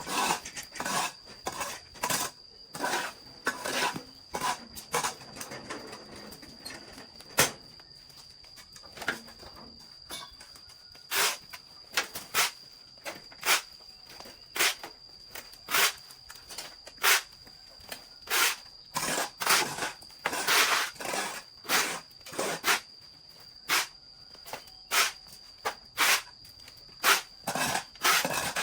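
Repeated short scraping or chopping strokes from hand work, about one or two a second at an uneven pace, over a steady thin high-pitched tone.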